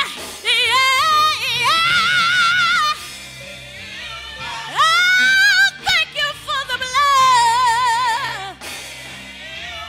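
Female gospel singer singing long, held notes with a wide vibrato over a quiet accompaniment, sliding up into a high held note about halfway through.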